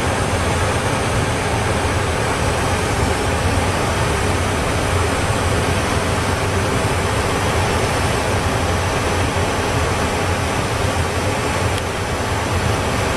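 Steady, even roar of aircraft noise, unbroken and without rise or fall, with a low hum underneath.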